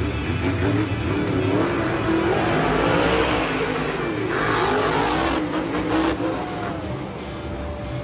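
Dragon monster truck's engine revving hard, its pitch rising and falling over and over as the truck drives on the arena dirt.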